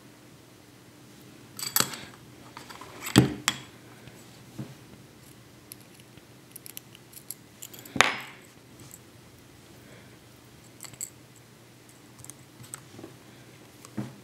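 Aluminium Element Case Vapor bumper pieces being handled and fitted around an iPhone 4, making scattered sharp clicks. The loudest come about three seconds in and about eight seconds in.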